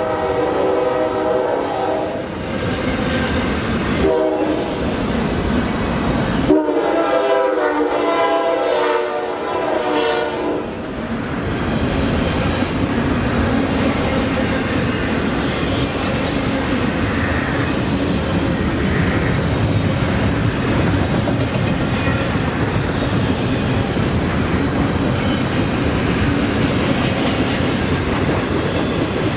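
Double-stack container train rolling past: a steady rumble and clatter of the well cars' wheels on the rails. A train horn chord sounds at the start and again, longer, from about 4 to 11 seconds in.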